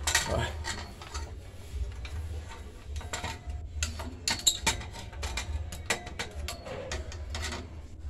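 Irregular clicks, knocks and rattles of a metal Yagi TV antenna and its plastic mounting bracket being handled and set against a metal railing, over a low rumble.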